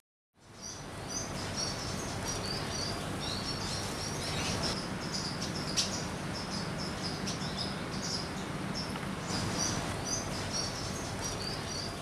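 Ambient outdoor sound fading in after a moment of silence: small birds chirping, short high calls repeating again and again over steady low background noise.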